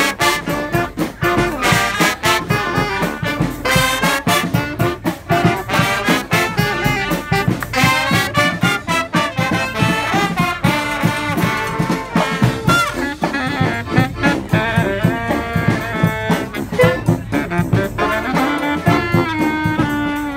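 A street brass band of horns and drums playing a lively tune. About two-thirds of the way through, the drumming thins out and the horns hold long notes.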